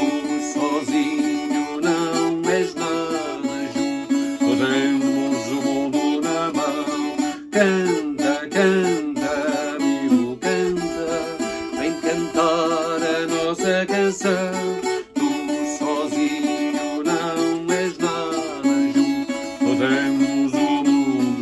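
Viola campaniça, the Portuguese ten-string folk guitar, playing an instrumental passage without singing: plucked notes over sustained low bass notes.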